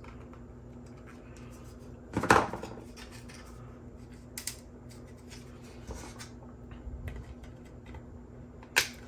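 3D-printed plastic support material being snapped off helmet parts by hand: scattered clicks and cracks, with a louder crack about two seconds in and a sharp snap near the end.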